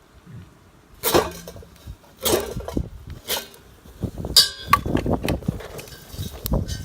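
Four sharp knocks about a second apart, the loudest one ringing briefly like metal, followed by a busier stretch of clattering and handling noise.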